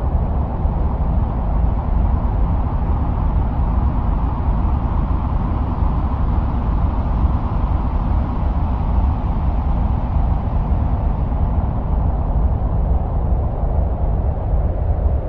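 Steady wind-like noise presented as the sound of Mars, heavy in the deep bass and fading out in the highs, swelling a little midway.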